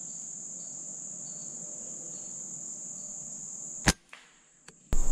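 Steady high buzz of crickets and other insects, then about four seconds in a single sharp shot from a Gamo Whisper Fusion Mach 1 .22 break-barrel air rifle firing.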